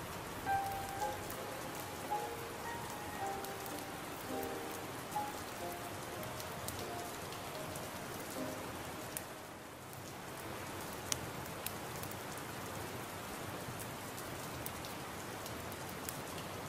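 Steady rain ambience, an even hiss. A few soft, scattered notes of background music sound over it during the first half. Occasional sharp ticks stand out.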